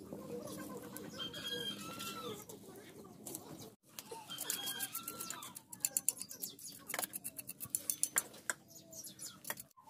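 Chickens clucking, short rising-and-falling calls heard twice in the first half. From about two seconds after the midpoint comes a quick run of sharp clicks and crackles.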